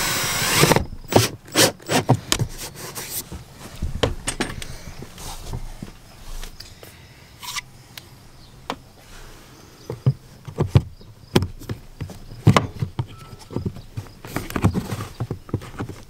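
A cordless drill driving a mounting screw, stopping within the first second, then a run of sharp clicks and knocks as the WeBoost signal-booster amplifier and its mounting plate are handled and fitted into place.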